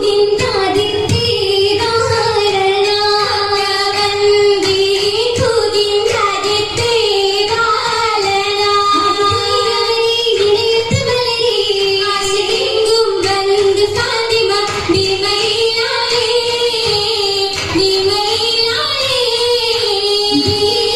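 Oppana song: female and child voices singing a Mappila song over a steady held tone, with irregular low thumps.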